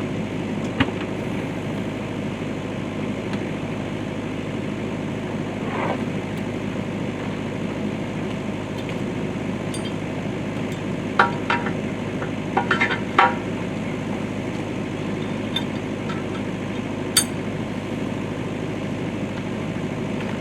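Kubota KX71-3S compact excavator's diesel engine running steadily, with sharp metal clinks and clanks: one about a second in, a quick cluster around the middle, and one more later.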